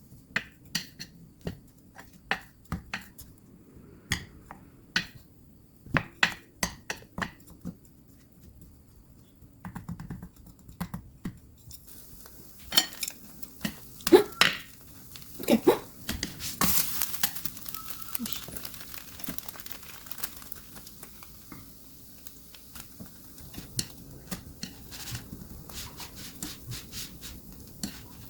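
Kitchen handling sounds: light taps and clinks of dishes and utensils, then a louder stretch of clattering and scraping about thirteen to seventeen seconds in, then softer rustling.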